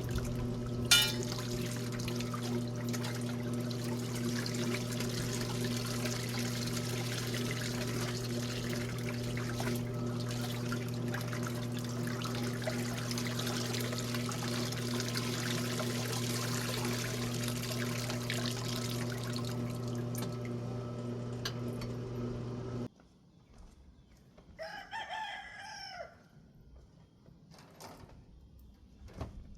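Electric wringer washing machine running with a steady hum while it agitates the wash, with water noise over it; it cuts off suddenly about 23 seconds in. A rooster then crows once.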